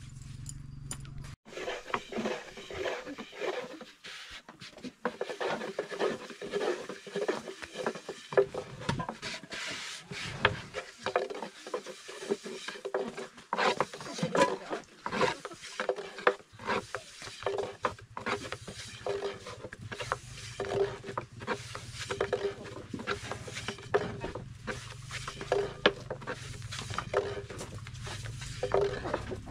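A long, thin wooden rolling pin rolls and knocks against a round wooden board as flatbread dough is rolled out. It makes a dense, uneven run of wooden clacks mixed with rubbing.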